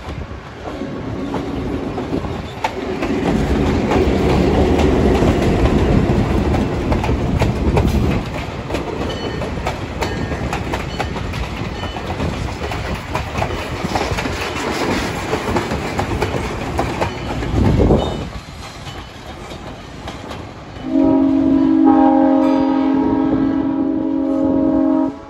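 Wabash EMD F7A diesel locomotive working past, its engine loudest in the first several seconds, followed by passenger car wheels clicking over rail joints, with one loud thump about 18 seconds in. Near the end an air horn sounds one long chord of about four seconds, then cuts off suddenly.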